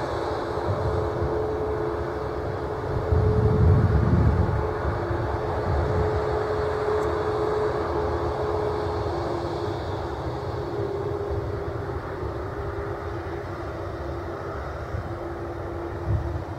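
Boeing 737 jet engines running at low taxi thrust: a steady whine with a couple of held tones over a rushing noise. A low rumble swells briefly about three seconds in.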